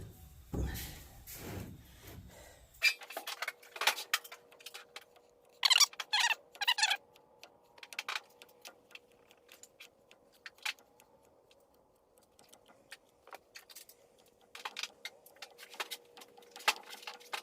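Scattered clicks, taps and light scrapes of hand tools working a foundry sand mold, with a few short scraping strokes about six seconds in, over a faint steady hum.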